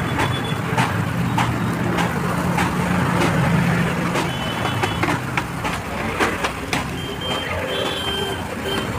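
Roadside street-stall ambience: a steady low rumble with many short, sharp clicks and clinks scattered through it, and a faint high beeping about seven to eight seconds in.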